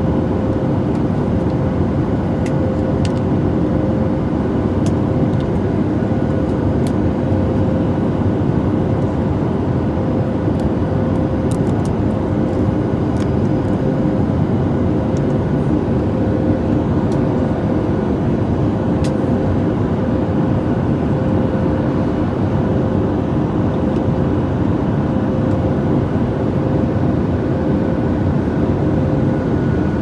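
Airliner cabin air conditioning: a steady rush of air from the overhead air vents over the cabin's low drone, with a faint steady hum through it.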